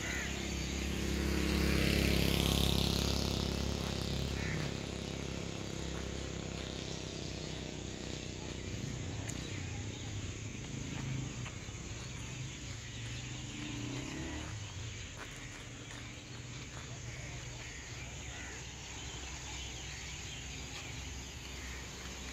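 Crickets chirring steadily as an even high-pitched background over a low rumble. A louder rushing swell rises in pitch about two seconds in, then fades.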